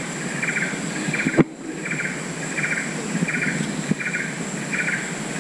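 A rainforest insect chirping in short buzzy pulses, about three every two seconds, with a steady high insect-like whine above it and a low steady engine hum beneath, likely from the boat's motor. A single sharp knock sounds about a second and a half in.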